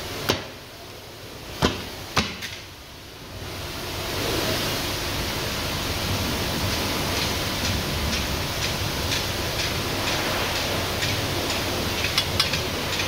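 Sharp metal knocks from the lock ring of a steel split rim being stepped on and pressed into its groove, three in the first couple of seconds and two more near the end. From about four seconds in, a steady rushing hiss underlies everything.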